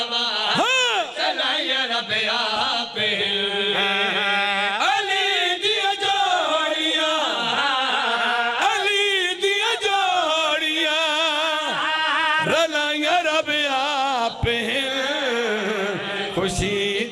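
Men's voices chanting a devotional Punjabi qaseeda over microphones, the pitch sliding and wavering in long melismatic lines.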